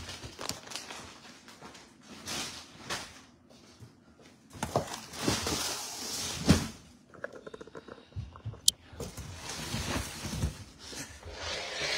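Rustling and knocking of plastic-wrapped bags and cardboard boxes being handled and opened, in irregular bursts, with a sharp click late on.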